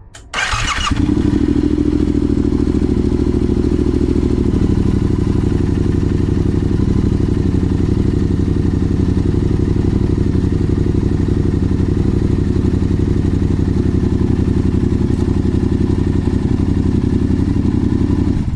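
Yamaha XSR700's parallel-twin engine turned over on the electric starter, catching within about a second, then idling steadily. The idle note changes slightly about four seconds in.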